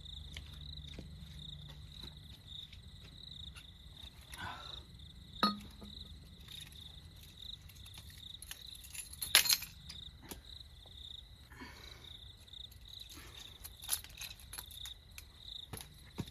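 Crickets chirping steadily in a fast pulsing trill, with a few sharp clinks over it, the loudest about nine seconds in.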